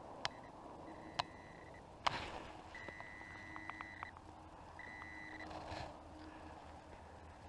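Garrett Pro-Pointer pinpointer beeping as it is probed into the snow over a buried coin: three steady high beeps, the middle one the longest, with a few sharp clicks, the loudest about two seconds in.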